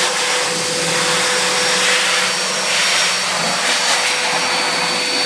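Pet grooming blow dryer running steadily, blowing air through its hose and nozzle onto a kitten's fur: an even rush of air with a steady motor whine.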